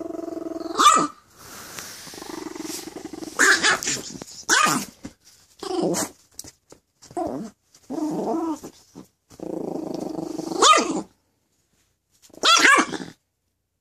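A 3-pound chihuahua growling aggressively in long, steady stretches, broken by a series of sharp, high yaps and snarls, with a short pause near the end.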